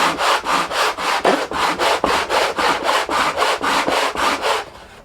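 Sandpaper on a flat granite slab rubbed back and forth against the wooden edge of a resonator guitar body, about five fast rasping strokes a second, levelling it until the pencil marks are gone. The strokes stop briefly near the end and then start again.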